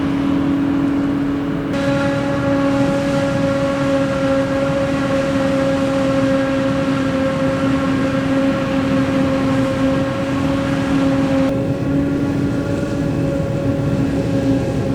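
Heavy farm machinery running steadily at a constant speed during a maize harvest: an even engine drone with a steady whining tone over it. The sound changes abruptly about two seconds in and again about eleven seconds in.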